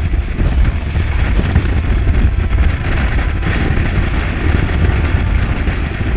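Wind buffeting the microphone on a Weta trimaran under sail, over a steady rush of water along the hulls.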